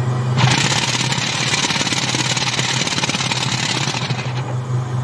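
DTF powder shaker and curing unit running with a steady low machine hum. A harsh hissing rattle starts just after the beginning and cuts off about four seconds in.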